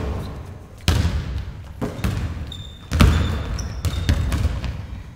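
Basketballs bouncing on a hardwood gym floor: several separate thuds that echo through the hall, the loudest about a second in and again about three seconds in.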